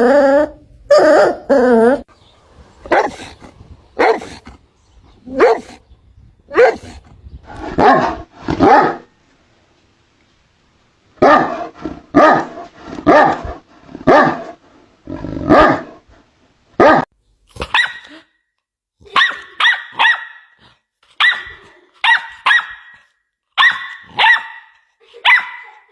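Dog barking repeatedly in single loud barks about a second apart, with a brief pause about a third of the way in. About two-thirds through, the barking changes to higher-pitched, quick yapping barks in clusters, a puppy.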